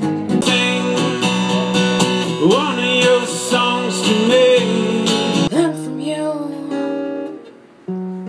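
Acoustic guitar strummed in chords while a man sings over it. About five and a half seconds in, the sound cuts abruptly to another passage of held guitar chords, which fades just before the end.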